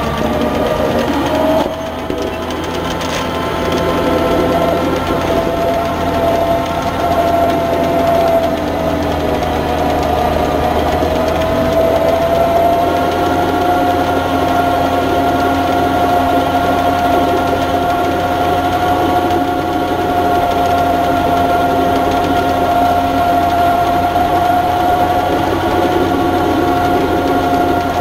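John Deere 6600 tractor running steadily under load, driving a PTO-powered rotary harrow and seed drill through the soil, with a steady high whine over the engine hum. The loudness dips briefly about two seconds in, then builds back up.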